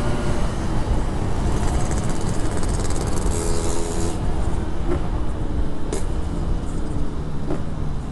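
Yamaha RX-King 135cc single-cylinder two-stroke running through a gutted Packing Power PK1 exhaust while being ridden, under a dense steady low rumble, with a few short clicks in the second half.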